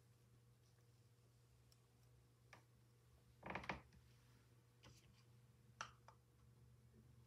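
Near silence: a faint steady room hum with a few soft clicks and taps, the loudest a short cluster about halfway through.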